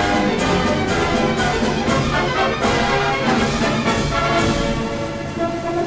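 Orchestral music with brass playing chords.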